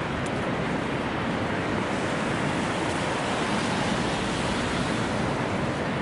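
Steady rush of water, an even noise with no distinct splashes or tones.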